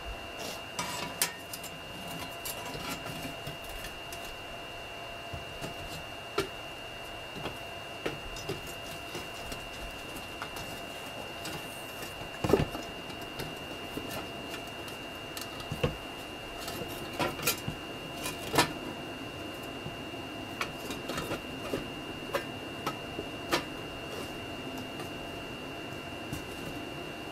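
Scattered clicks, knocks and scrapes of a metal tool working among glowing coals in a small homemade furnace while a big lump of molten rock is pulled out, with a few louder knocks. A steady high whine runs underneath.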